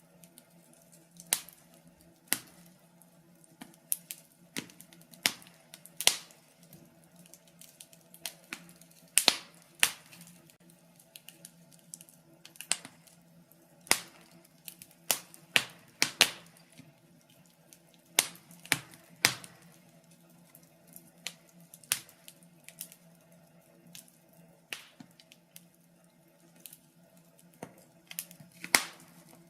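Wood fire in a fireplace crackling: irregular sharp pops and snaps, some much louder than others, over a faint steady low hum.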